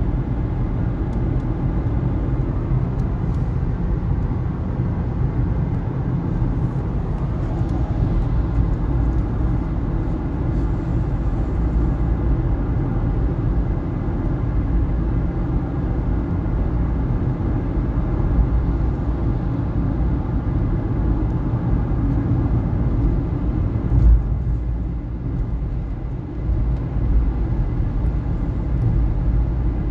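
Steady low rumble of road and engine noise inside a moving car, with one sharp thump about 24 seconds in.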